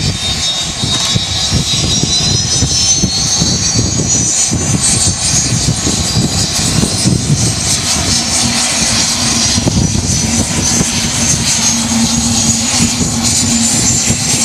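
Twin-engine turboprop airliner's engines spooling up: a high turbine whine climbs slowly in pitch throughout, over a heavy low rumble. A steady low hum joins about eight seconds in.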